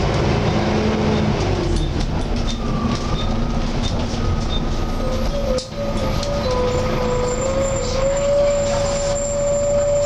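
Volvo B7TL double-decker bus on the move, heard inside from the upper deck: a steady engine and road rumble with the loud whine of its cooling fan, the 'hoover'. The whine comes in about five seconds in, wavers, then rises a little and holds steady near the end.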